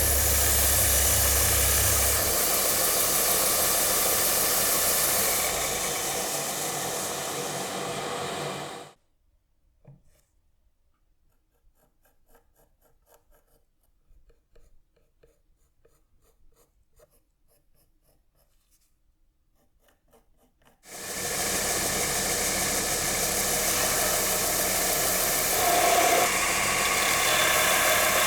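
A power tool running with a steady grinding noise, then cut off abruptly about nine seconds in. About twelve seconds of near silence with faint small clicks and taps follow, then the tool runs again.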